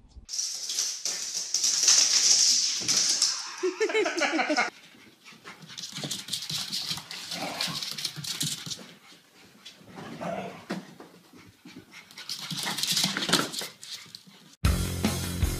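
Dogs' claws scrabbling and skittering on a smooth wooden floor as they run and slide, with a short whine about four seconds in. Guitar music cuts in near the end.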